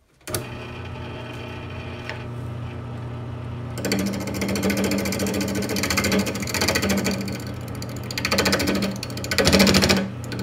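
A wood lathe's motor starts up and runs with a steady hum. From about four seconds in, a turning tool cuts into the spinning crepe myrtle blank with a rough, scraping hiss that swells in several stronger passes, turning down the end of the handle blank to size for a ferrule.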